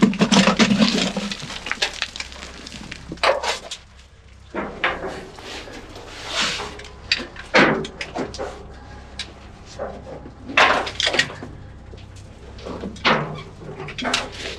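A person climbing and scrambling in a narrow mine tunnel: irregular scrapes, scuffs and rustles of boots, hands, rope and clothing against rock and loose gravel.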